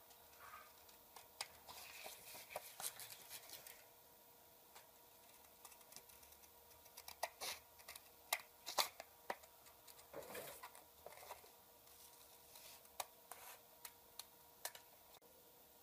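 Scissors snipping through glossy printer paper, a faint series of short cuts and paper rustles that come in two busy spells, a few seconds in and again around the middle, with sparser snips between and near the end.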